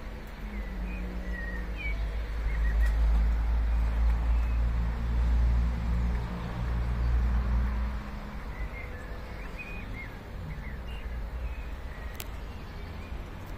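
Thunder rumbling in the distance, a deep rumble that builds over a couple of seconds and dies away about eight seconds in. Small birds chirp throughout.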